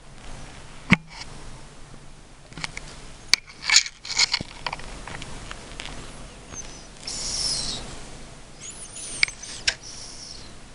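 A sleeping cat snoring: high, hissy, whistling breaths about a second long, one about seven seconds in and another near nine seconds, with scattered clicks and taps between them.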